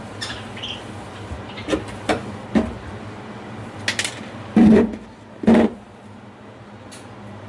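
Scattered clicks and knocks of hard objects being handled, with two louder thuds about four and a half and five and a half seconds in, over a steady low hum.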